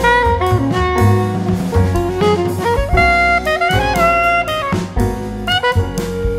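Instrumental background music: a stepping lead melody over a bass line and a drum beat.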